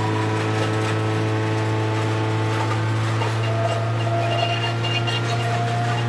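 Wood crusher machine running steadily with a constant low hum, with light rattling ticks over it.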